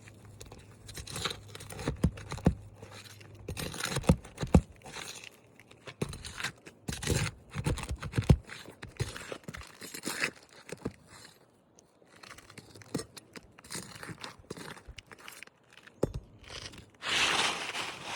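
Asphalt roof shingles being handled and worked loose: irregular scraping, crunching and tearing noises with sharp knocks, and a louder rushing scrape about a second before the end.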